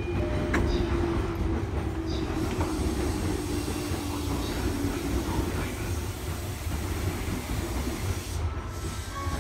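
JR East E233-1000 series Keihin-Tohoku Line commuter train running, heard from inside the front car: a steady low rumble of wheels on rail, with a faint whine that sinks slightly in pitch over the first few seconds.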